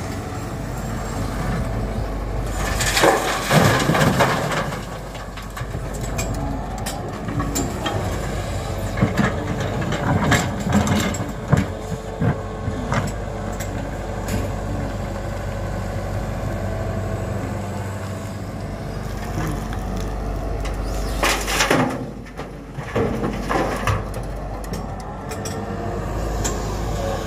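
Tata Hitachi Zaxis 120H excavator running steadily as it digs, with the crunch and clatter of murrum soil and stones against the bucket; two longer, louder bouts of crunching come about three seconds in and again near the end.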